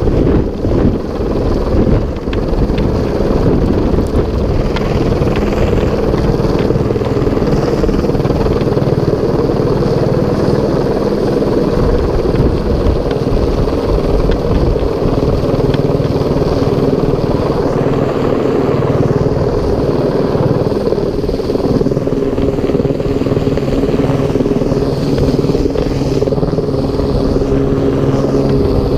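Airbus AS350 single-engine helicopter hovering low overhead and lifting a sling load on a long line: steady rotor thrum and turbine, with wind buffeting the microphone.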